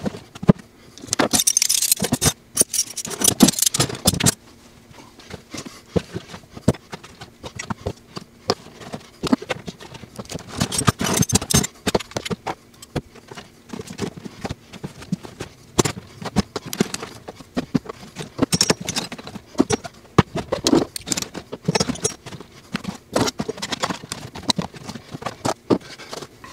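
Steel hand tools clinking and jangling against each other as they are stuffed into the pockets of a fabric rolling tool bag. Short clinks and scrapes come in bursts, busiest in the first few seconds and again around ten to twelve seconds in.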